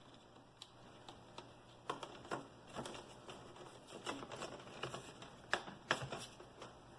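Faint, irregular plastic clicks and taps as a laptop's plastic screen bezel is handled and pressed onto the display lid, snapping into place.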